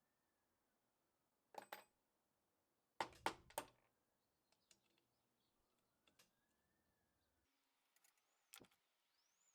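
Short metallic clicks and clinks of tools and loose motor parts being handled, the loudest a quick cluster of three about three seconds in. A faint siren rises and falls in the background.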